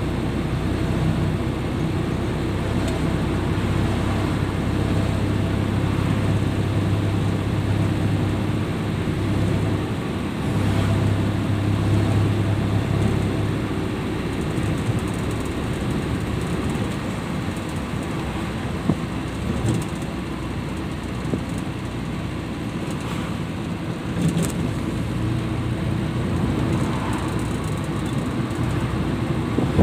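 Engine and road noise inside the cabin of a van driving at highway speed: a steady drone with a low engine hum that swells about a fifth of the way in and fades after the middle, and a few small clicks later on.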